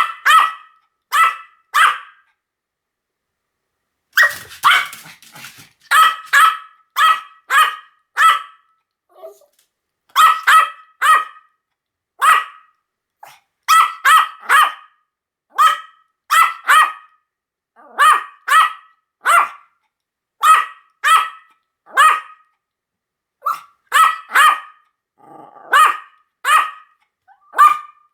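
Pomeranian barking: sharp, high-pitched yaps, mostly in quick runs of two to four with brief silences between. About four seconds in there is a rougher, denser flurry.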